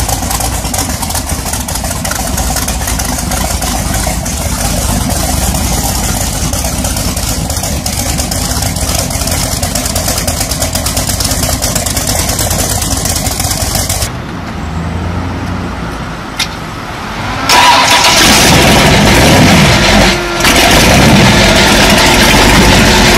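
V8 engine of a custom motorcycle running steadily. About fourteen seconds in the sound drops to a quieter, duller stretch with a single click, then a louder V8 motorcycle engine runs.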